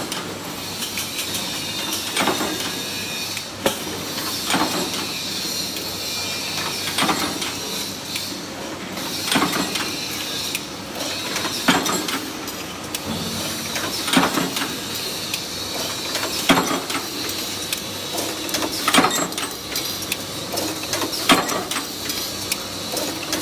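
Paint brush ferrule punch press running, stamping metal strip in the die with a sharp metallic strike about every two and a half seconds, over the steady noise of the running machine.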